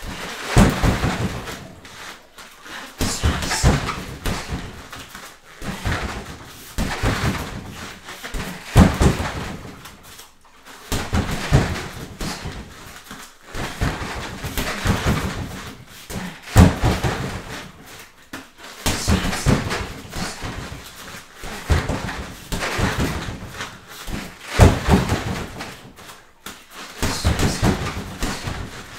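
Repeated thuds of knees and kicks striking a freestanding heavy bag, coming in short clusters about every two seconds.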